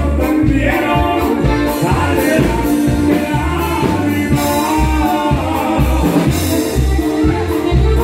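Live norteño band playing with a lead singer over a steady bass-and-drum beat.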